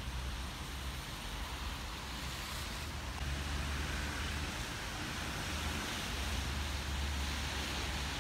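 Wind buffeting the microphone: a low, uneven rumble over a steady hiss. It grows a little louder about three seconds in.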